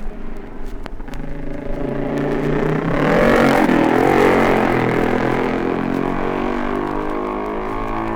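A single racing motorcycle engine approaching and passing close, loudest about three to four seconds in, its pitch dipping and then climbing again as it is ridden through the corner, then fading away.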